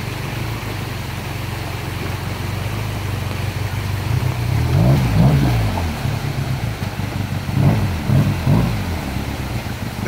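Arctic Cat Wildcat Sport XT side-by-side engine running at low speed, revved up and down in a few swells about halfway through and again in the later part as it crawls through a rocky creek, with running water hissing behind it.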